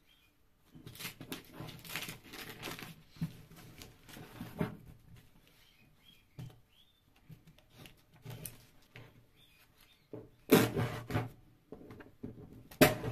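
Packing tape on a cardboard box being slit with a knife and torn back, a series of irregular scraping and ripping strokes with the cardboard rustling. The two loudest rips come about ten seconds in and near the end.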